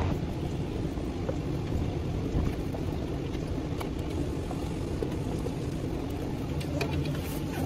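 Steady low rumble and hum inside a car's cabin, with a few faint clicks as screws are worked out of an overhead flip-down monitor with a screwdriver.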